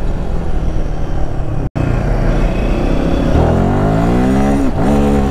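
Royal Enfield Himalayan 450's liquid-cooled single-cylinder engine running under the rider, with the sound cutting out for an instant about two seconds in. In the second half it accelerates: the pitch climbs, drops sharply at an upshift, then climbs again.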